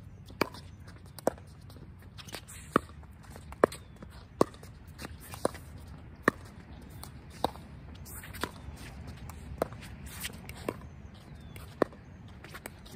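Pickleball rally: sharp pops of paddles striking the hard plastic ball, about a dozen hits coming roughly one a second, some louder than others.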